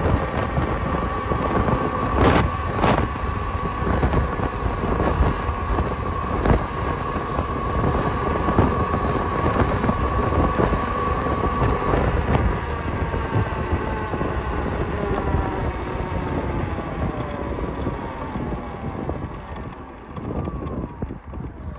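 Talaria electric dirt bike's motor whining under way, with wind on the microphone and tyre rumble. The whine holds a steady pitch, then falls gradually from about halfway and more steeply near the end as the bike slows. Two short knocks come a little over two seconds in.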